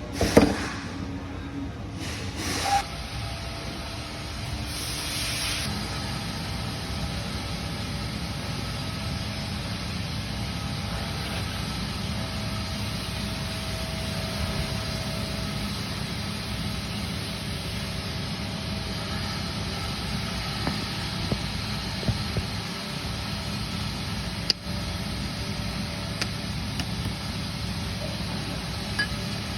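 Two sharp bangs in the first few seconds and a short hiss about five seconds in, then a car engine running steadily.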